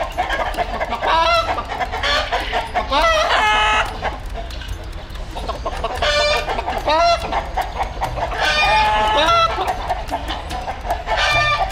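Chickens and roosters in a wire cage clucking and calling over and over, with a rooster crowing among them.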